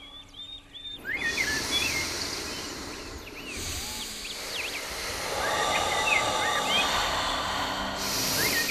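Birds chirping in short whistled phrases that recur several times, over a steady outdoor hiss of background noise that rises about a second in.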